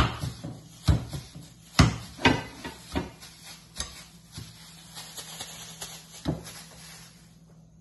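A ball of raw ground sausage meat slapped repeatedly against a plate and between gloved hands to compact it: about seven slaps, roughly one a second, growing softer after the first few.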